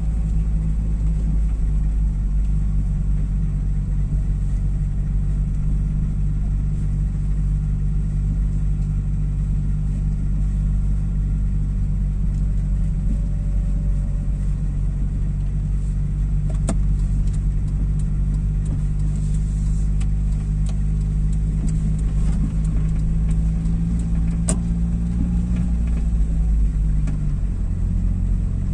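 A car driving slowly, heard from inside the cabin: a steady low engine and road hum whose pitch drops near the end, with a couple of faint single clicks.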